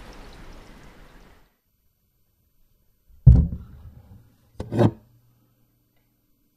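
Rain hiss fading away, then after a pause two heavy thuds about a second and a half apart, the second followed by a faint low hum.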